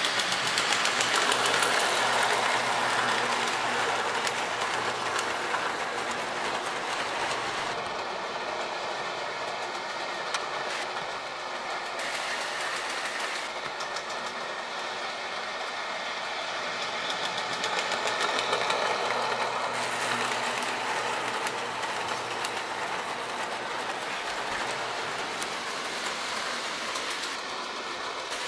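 K-Line O-gauge Alco diesel toy train running on three-rail track, with a steady mechanical rattle of its wheels over the rails and faint repeated clicking. It is loudest in the first few seconds, as the locomotive passes close by.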